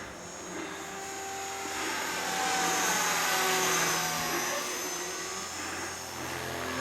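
Small electric model helicopter flying overhead: a whine and rotor hiss whose pitch drifts up and down as it manoeuvres, growing louder toward the middle and easing off again.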